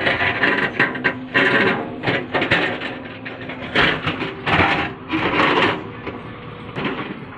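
Backhoe loader's diesel engine running steadily under load, with repeated bursts of scraping and clatter, about one every half second to second, as the bucket works through hard rock.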